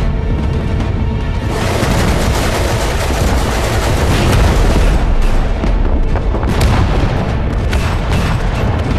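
War-film battle sound effects: heavy booms and gunfire-like crackle over dramatic orchestral score. The dense explosive noise comes in about one and a half seconds in.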